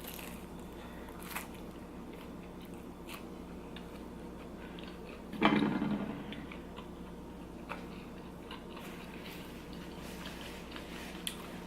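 A person chewing a mouthful of food close to the microphone, with faint scattered mouth clicks. About five seconds in there is one short, louder sound from the eater's throat or mouth.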